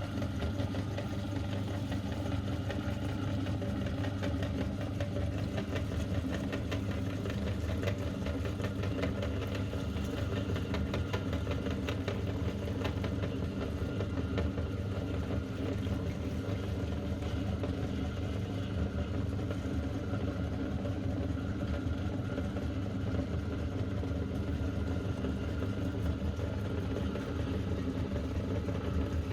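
Electric meat grinder running steadily with a low motor hum.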